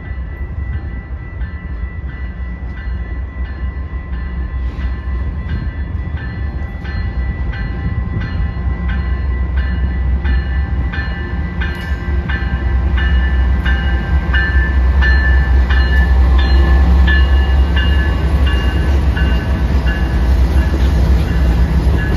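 Freight train with diesel locomotives approaching and passing close by: a low rumble of engines and wheels grows louder through the first half. Over it a warning bell rings steadily, about two strikes a second.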